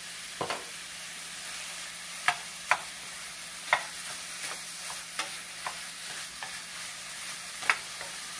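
Ground pork and onions frying in oil in a stainless steel skillet with a steady sizzle, while a wooden spoon stirs and breaks up the still partly frozen meat, knocking sharply against the pan several times.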